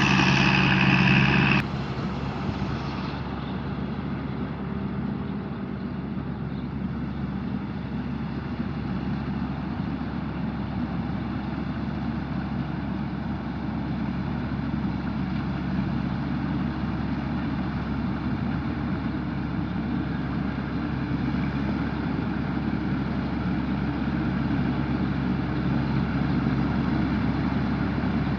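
Tamco combine harvester's Isuzu 6HK1 six-cylinder diesel running steadily. About a second and a half in, its sound drops suddenly and the higher notes fade away; it then runs on evenly, growing a little louder near the end.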